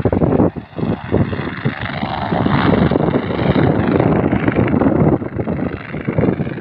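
Helicopter running on the ground with its rotor turning, mixed with heavy wind buffeting on the microphone that rises and falls in gusts.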